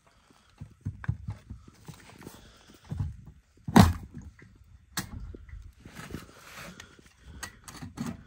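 Knocks, clicks and scraping of a plastic in-tank fuel pump module being handled and lifted up out of its tank opening by gloved hands, with a sharp loud knock about four seconds in and another about a second later.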